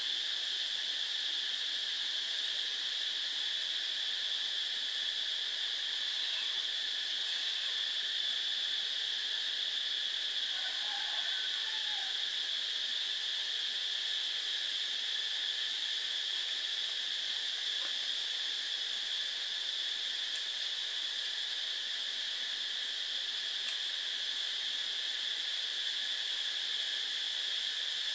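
Steady high-pitched insect chorus that does not change in level.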